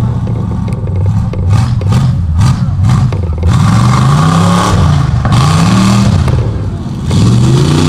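Chevrolet mega truck's engine revving hard in about three rising and falling surges as it powers through a mud pit.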